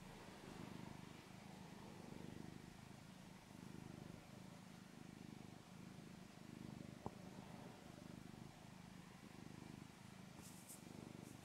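Domestic cat purring softly while being scratched: a faint low purr that swells and fades in a regular rhythm about once a second, with a single short click about seven seconds in.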